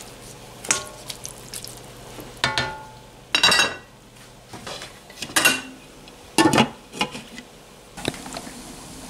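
Spatula scraping and knocking against a wok while stir-frying rice noodles, an irregular series of clanks and scrapes a second or so apart, a few of them ringing briefly.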